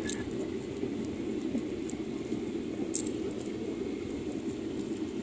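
Steady airliner cabin noise at cruise: the low, even rush of the engines and airflow, with a few faint clicks.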